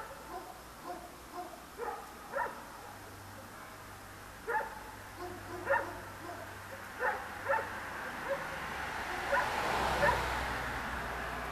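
Dogs barking in short single barks, at irregular intervals. From about eight seconds in, a passing car's noise swells, peaks near the end and starts to fade.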